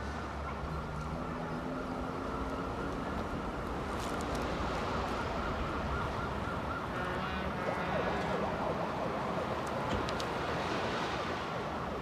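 Steady street traffic noise with a siren wailing, its pitch gliding up and down.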